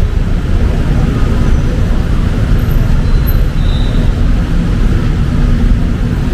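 City street traffic in the rain: a steady rumble of vehicles mixed with the hiss of rain and wet roads, with an engine hum in the second half.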